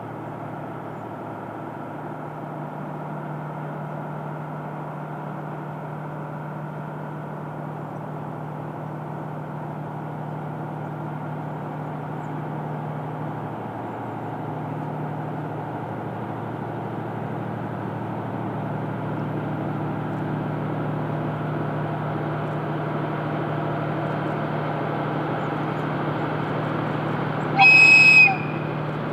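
JR Freight DF200 diesel-electric locomotive's engine drone, steady and slowly growing louder as it approaches. A short horn blast sounds near the end.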